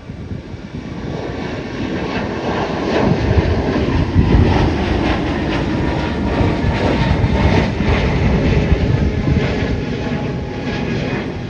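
Boeing 747 freighter's four jet engines running loud as the aircraft passes, swelling over the first three seconds and then easing a little, with a crackling roar and a faint tone slowly falling in pitch.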